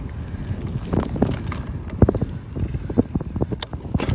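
Bicycle rattling and clicking over rough pavement while being ridden, irregular knocks over a low rumble.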